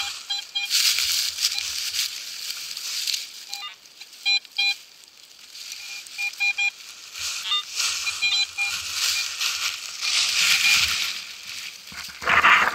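Dry fallen leaves and soil rustling and scraping as a hole is dug and sifted by hand, with runs of short repeated beeps from a metal detector signalling a target in the soil.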